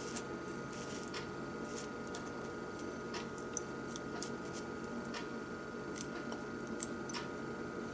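Scattered small plastic clicks and taps as fingers work a tiny DCC decoder plug onto a model locomotive's circuit-board pins, a fiddly fit that has to be fought into place. A steady faint hum runs underneath.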